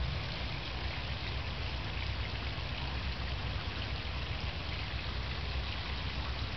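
Small garden waterfall: water spilling from a spout down a stacked-stone stream bed and splashing into a pond, a steady trickling and splashing. A low rumble runs underneath.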